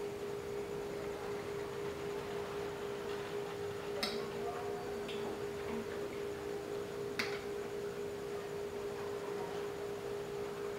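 Spoon and fork clinking against a plate twice, about four and seven seconds in, over a steady hum.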